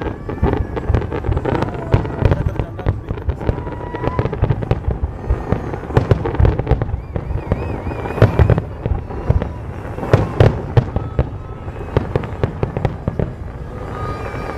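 Fireworks going off in a rapid, irregular barrage of bangs and crackles, easing off near the end.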